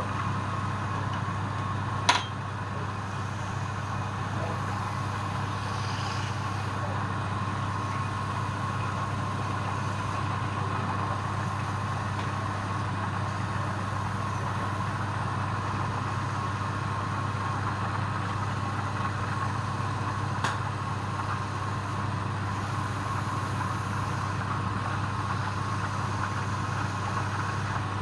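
A machine running with a steady hum, with a sharp click about two seconds in and a fainter one about twenty seconds in.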